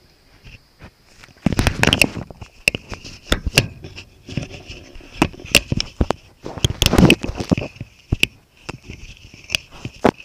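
An ocelot rubbing its face and fur against the camera right over the microphone: scraping, rustling contact noise with many sharp clicks and knocks, heaviest in two spells, about a second and a half in and around seven seconds in.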